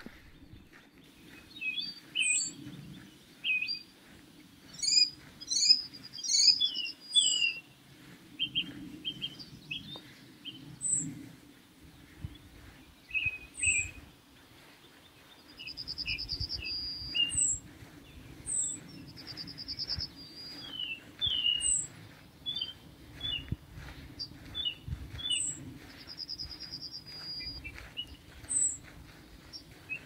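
Several forest songbirds singing, a mix of short high chirps, down-slurred notes and a buzzy trill that repeats every four or five seconds. A low rumble joins about halfway through.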